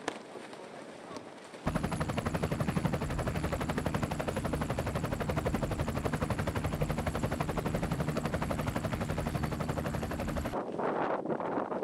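Helicopter rotor beating rapidly and evenly over a steady low engine drone; it starts abruptly about two seconds in and cuts off abruptly near the end.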